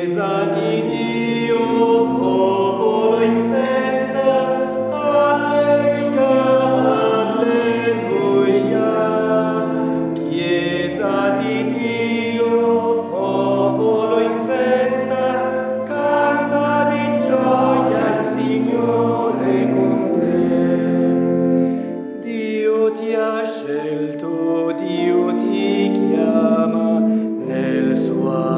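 Choir singing a hymn with many voices holding chords together; it thins out and softens for a while about two-thirds of the way through.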